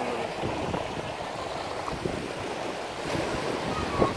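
Seawater washing and sloshing in a rocky tidal pool, a steady rush of surf against volcanic rock, with a brief louder splash about four seconds in.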